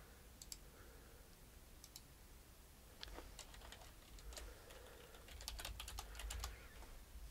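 Faint typing on a computer keyboard: a few scattered keystrokes at first, then a quicker run of key clicks from about three seconds in, densest near the end.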